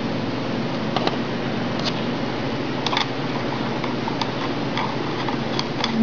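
Scattered small clicks and taps, about nine of them, as the antennas of a remote-control jammer are handled and fitted to its case. A steady hiss with a faint hum runs underneath.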